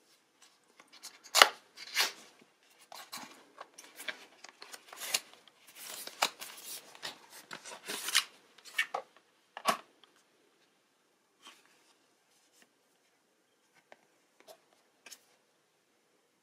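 Red cardboard envelope from a OnePlus 7 phone box being handled and opened by hand: card rubbing, scraping and snapping as the flap is opened and a card is slid out, with the two sharpest clicks about a second and a half and two seconds in. After about ten seconds only a few faint taps.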